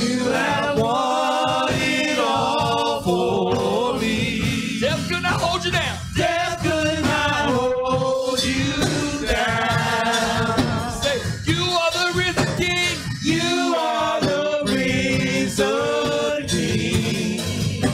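Gospel singing: a man's voice sings a slow praise song with long, bending held notes over a steady low accompaniment.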